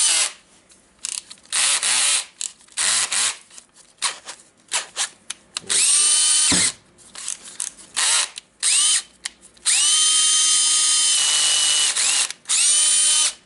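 Makita DDF456 18V cordless drill driver's motor run in a series of trigger pulls, short blips and longer runs up to about a second and a half. Each one spins up with a rising whine, holds a steady pitch and winds down. This is a test run with a freshly fitted armature and brushes, and the motor is running better.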